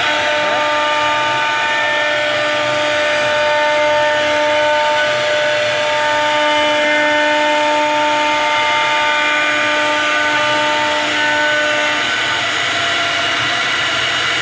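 CNC router spindle running with a steady high-pitched whine over a cutting hiss as its bit carves a relief pattern into a wooden panel.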